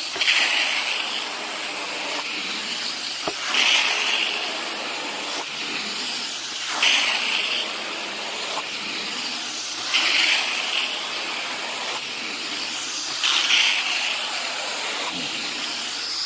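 Hot-water carpet extraction wand running over carpet, a steady suction-and-spray hiss that surges louder about every three seconds, five times, with the strokes of the wand.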